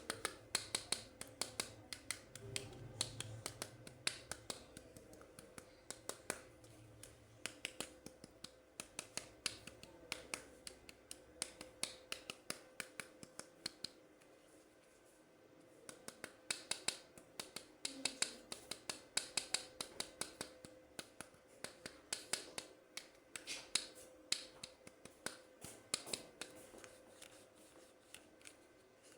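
Toy packaging being handled and opened by hand: runs of sharp plastic and cardboard clicks and crinkles, several a second, with a short pause about halfway through.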